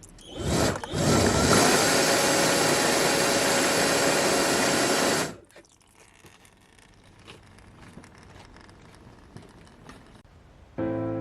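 A small motor, like a power tool, runs steadily for about four seconds and then cuts off suddenly, followed by a few faint clicks.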